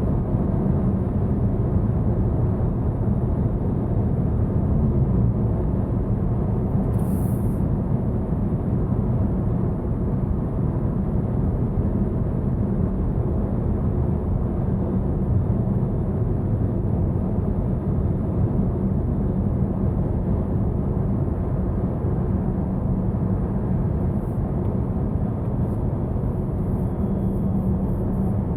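Steady road and tyre noise inside the cabin of a 2021 Volvo V90 at highway speed, driving on electric power alone with no engine running: an even low rumble with a faint steady hum.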